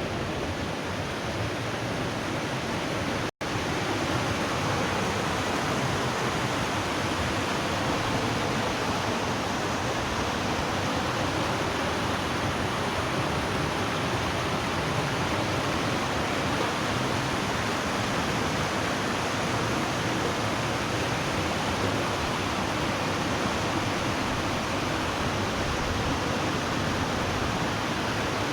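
Putna waterfall's water rushing steadily, close by. It is broken once by a split-second dropout about three seconds in.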